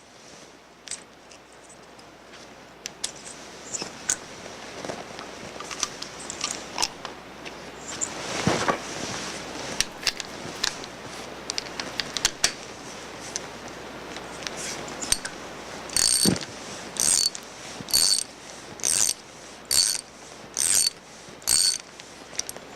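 Ratchet wrench on a 1-inch deep socket unscrewing a pressure sensor from a manifold. Scattered clicks and tool handling come first, then a run of about seven short ratcheting strokes near the end.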